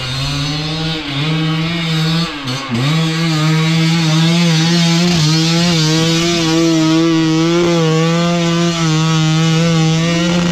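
GasGas enduro dirt bike engine held at high revs during a steep hill climb, with a brief drop in revs between two and three seconds in. The rear wheel is spinning in loose forest soil.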